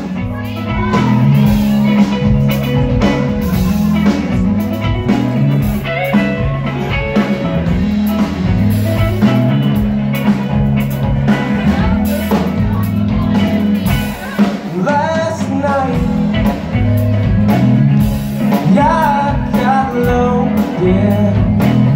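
Live band playing a blues number: electric guitar lines with string bends over a repeating bass riff and a drum kit, an instrumental passage with no vocals.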